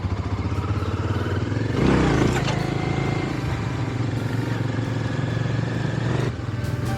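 Motorcycle engine pulling away and accelerating, its pitch rising over the first couple of seconds, with a louder surge about two seconds in, then running steadily.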